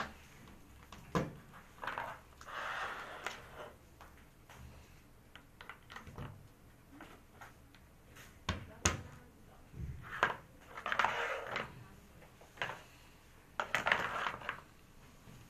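Hard white plastic parts of an ADS-188 bathroom pole caddy being handled and pressed together by hand: scattered sharp clicks and knocks, with three stretches of scraping and rubbing.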